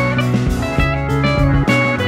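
Live band music: an electric guitar playing over an electric bass and drums, with sustained notes that change pitch and a steady beat.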